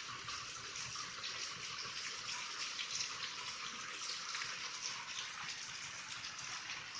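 Heavy rain pouring steadily in a thunderstorm, an even hiss with no thunder.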